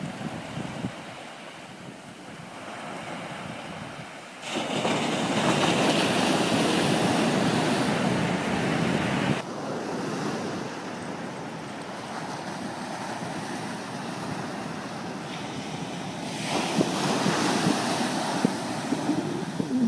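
Ocean surf breaking and washing up a sandy beach, with wind buffeting the microphone. The noise grows louder abruptly about four and a half seconds in, drops back about nine and a half seconds in, and rises again near the end.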